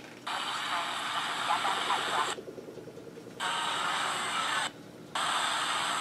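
Grundig eTraveller VII portable shortwave radio's speaker playing static hiss in three bursts of one to two seconds each, cutting off sharply between them as the radio scans and mutes from one frequency to the next. Faint traces of a voice come through in the first burst.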